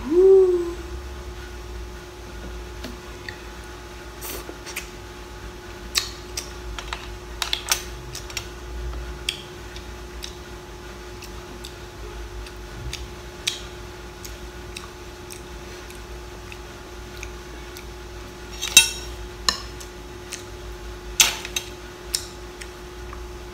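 Mud crab claw shells being cracked and picked apart: scattered sharp cracks and clicks, with a cluster of louder cracks near the end. A short rising pitched sound at the very start is the loudest moment, over a faint steady hum.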